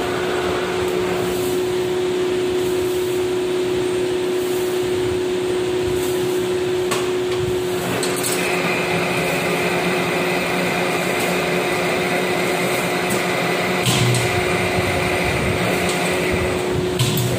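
Metal lathe running steadily with a constant hum while it turns a steel shaft for thread cutting. About eight seconds in, a high steady whine joins and runs for about eight seconds before stopping. A few sharp clicks are heard.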